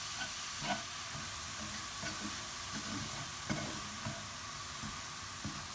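Cauliflower rice frying in a pan with a steady sizzle while a spatula stirs it, with a few light scrapes and taps of the utensil against the pan.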